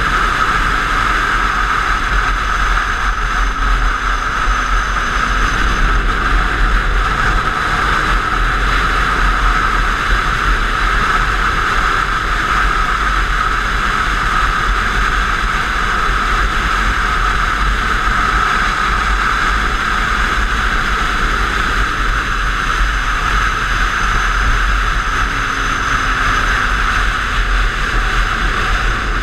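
Steady wind rush over an onboard GoPro microphone at track speed on a motorcycle, with the bike's engine faint underneath, its pitch falling a couple of times.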